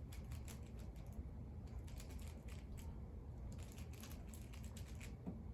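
Rubik's cube being turned quickly by hand: faint, irregular plastic clicks of the layers snapping round, coming in quick clusters with short gaps.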